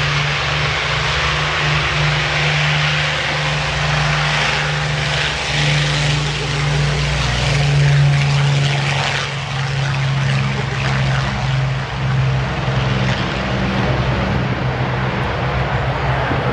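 Avro Lancaster's four Merlin V12 engines and propellers running as the bomber rolls past on the runway. The sound is loudest about eight seconds in, with a slight drop in pitch as it goes by.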